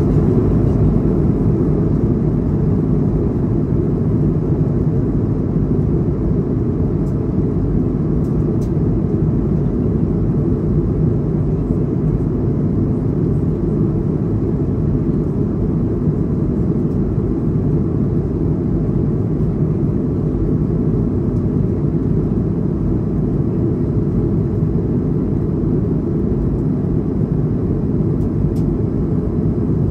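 Jet airliner cabin noise in flight: a steady, deep rumble of the engines and the air rushing past the fuselage, heard from inside the cabin.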